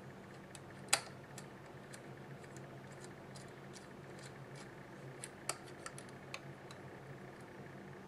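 Precision screwdriver backing the last screw out of a graphics card's mounting bracket: scattered light metal clicks and ticks, the sharpest about a second in and a loose run of quicker ticks between about five and six and a half seconds.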